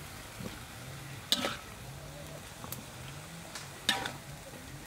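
Sharp metal clinks of cookware as the stir-fried chicken wings are scooped out of a steel wok onto a tray: two ringing clinks, about a second in and near four seconds, with a lighter tick between, over a faint steady sizzle.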